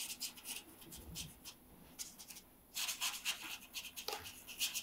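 Travel watercolour water brush stroking paint across cardstock paper: a run of short, soft scratchy strokes with brief pauses, busier from about three seconds in.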